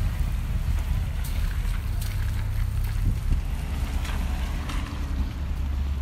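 Wind buffeting the microphone as a heavy, wavering low rumble, over city street ambience with a few faint clicks.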